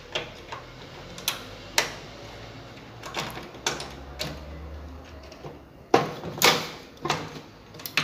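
Scattered light clicks and small plastic knocks as a replacement microwave door microswitch and its wiring are handled and fitted into place.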